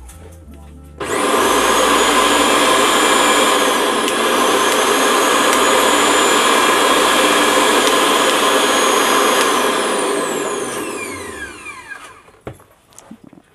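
Lifelong 500-watt mixer grinder's motor run with an empty jar fitted: it starts about a second in with a loud high whine, runs steadily for about nine seconds, then winds down in falling pitch once switched off. A light click near the end.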